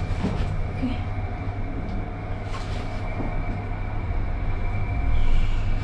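Glass-walled passenger elevator car travelling up its shaft: a steady low rumble with a faint, steady high whine over it.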